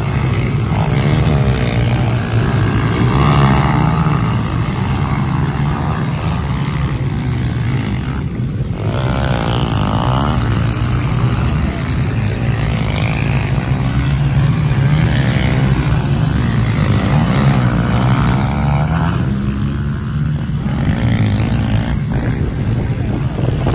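Pit bike engines revving on a dirt track, several at once, rising and falling in pitch as the riders open the throttle and shift.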